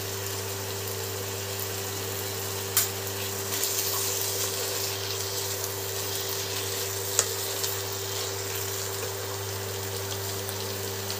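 Minced mutton and onions sizzling in a non-stick kadai, stirred and scraped with a wooden spatula from about three and a half seconds in. A couple of sharp clicks of utensils against the pan, over a steady low hum.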